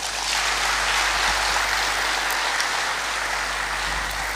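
A crowd applauding, rising at once and holding steady before easing slightly near the end.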